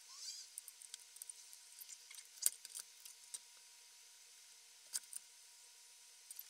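Light clicks and taps as a bare circuit board is picked up and handled, with two sharper knocks of it against a stone tile, about two and a half seconds in and again near five seconds. A faint steady whine runs underneath.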